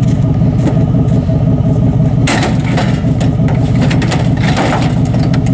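Pickup truck engine running steadily, with a burst of metal clatter and rattling about two seconds in.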